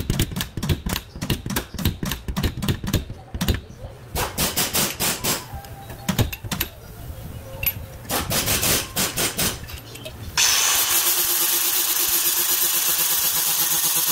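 Pneumatic air hammer rattling against the sheet-metal wheel-arch lip of a Hyundai Santa Fe in short repeated bursts. About ten seconds in, a small grinder starts up and runs steadily with a hissing whine.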